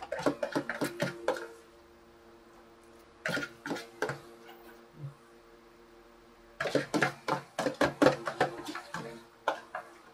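Eating sounds of a noodle meal: a metal fork clicking and scraping in a plastic bowl, mixed with mouth sounds, in three bursts of quick clicks, the longest in the second half.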